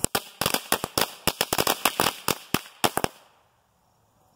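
A 40-count pack of Lady Fingers firecrackers going off: a quick, uneven run of sharp bangs lasting about three seconds, which then stops.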